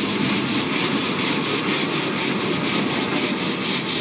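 Mount Washington Cog Railway steam locomotive running as it pushes its passenger coach: a steady, loud hissing rush with a fast, even rhythm.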